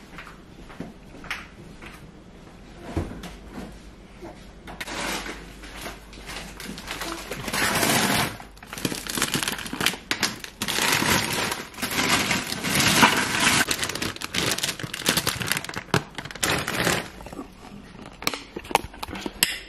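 Plastic bag of frozen green beans crinkling and rustling as it is handled. The crinkling comes in loud, irregular bursts from about five seconds in until near the end.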